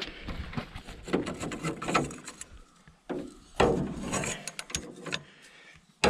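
Wrench with a pipe extension clicking and scraping as it is forced against a seized alternator, in irregular bursts with sharp ticks, the alternator just starting to free up.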